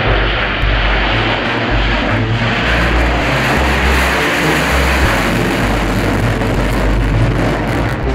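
Steady jet aircraft engine noise, a dense rushing sound over a deep rumble that shifts in level every second or two.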